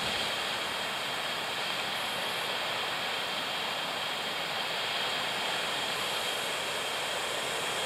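Strong wind blowing steadily, an even rushing noise with no let-up.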